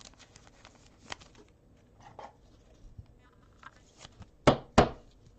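Trading cards being handled on a table: faint scattered clicks and rustles, then two sharp taps close together about four and a half seconds in.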